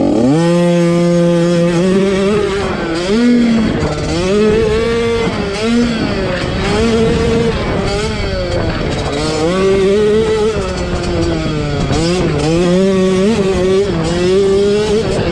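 50cc two-stroke youth motocross bike engine revving hard. Its pitch climbs sharply at the start, then rises and falls every second or two as the throttle is worked through the track.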